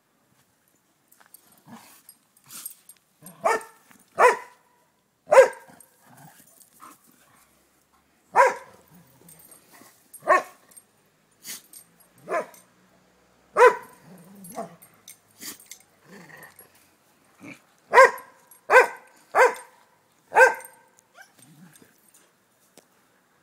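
A dog barking during play, single sharp barks a second or more apart, about a dozen in all, with a quicker run of four near the end.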